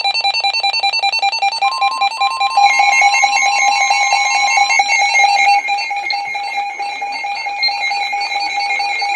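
Emergency Alert System attention tone: a shrill alarm tone near 850 Hz, joined by a second tone near 1 kHz for a few seconds. It stutters in rapid pulses, several a second, instead of sounding steady, a garbled alert that the title calls a fail. It gets louder about two and a half seconds in.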